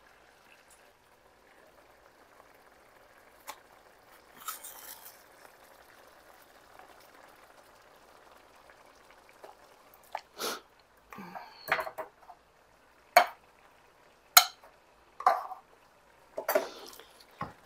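Kitchen utensils clinking and knocking against a skillet and other cookware: a few faint clicks at first, then a run of sharp knocks and clatters through the second half.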